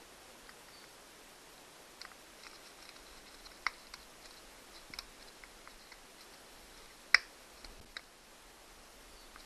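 Small screwdriver scraping and clicking against the wire terminals of an outboard motor as the contacts are cleaned: scattered light ticks and scrapes, with a sharper click a little under four seconds in and the loudest about seven seconds in.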